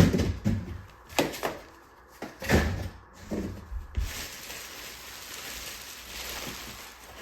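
Cardboard box and foam packing being handled: a few knocks and thuds in the first three seconds or so, then a steady scraping rustle for about three seconds.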